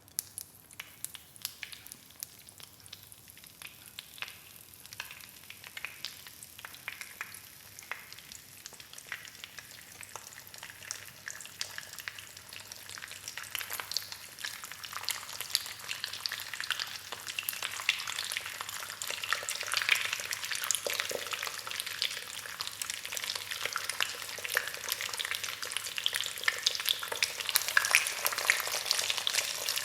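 An egg frying in a hot pan, sizzling and crackling with many sharp pops, starting suddenly and growing steadily louder as the fat heats up.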